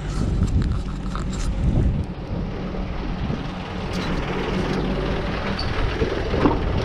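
Steady low rumble of an engine idling, mixed with wind buffeting the microphone, starting suddenly at the outset; a few footsteps crunch on gravel in the first couple of seconds.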